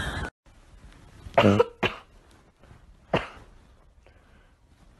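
Three short coughs, about one and a half, two and three seconds in; the first is the loudest.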